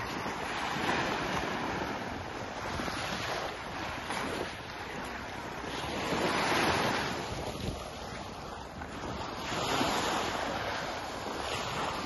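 Small waves washing onto a sandy beach, the wash swelling and easing about every three seconds, with wind buffeting the microphone.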